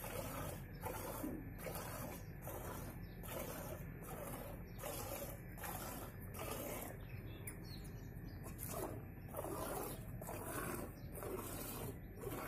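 Cow being milked by hand into a steel pot: short hissing squirts of milk into the metal vessel at an even rhythm of about two a second, one squirt for each pull on a teat.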